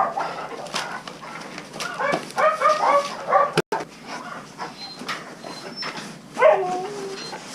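Dogs whining and yelping in short, pitched, bending cries, a cluster of them a couple of seconds in and another falling cry near the end.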